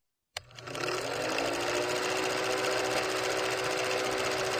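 Film projector sound effect: a fast, steady mechanical clatter of the projector running, starting about half a second in, with a motor hum that rises in pitch as it spins up and then holds steady.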